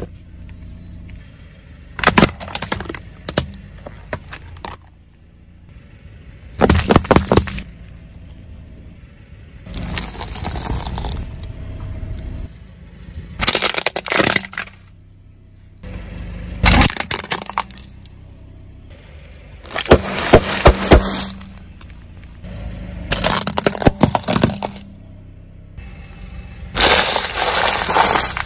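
A car tyre rolling slowly over one plastic object after another, crushing each with a loud burst of cracking and crunching. There are about eight crushes a few seconds apart, with quieter stretches between them.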